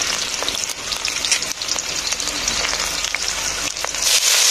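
Chopped onion and cumin seeds crackling and spitting in hot oil in a wok. About four seconds in, the sizzle jumps louder as a handful of chopped leafy greens (bhaji saag) is dropped into the oil.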